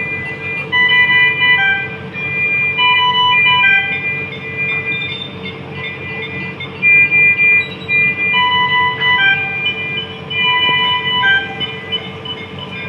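Overlapping electronic alarm beeps from NICU medical equipment (patient monitors and ventilator) at several fixed pitches, repeating over a steady hum.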